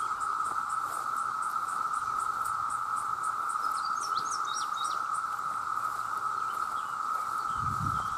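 Chorus of many cicadas: a steady, continuous drone with a high, even ticking about four times a second above it. A few short high chirps come about four seconds in, and there is a low thud near the end.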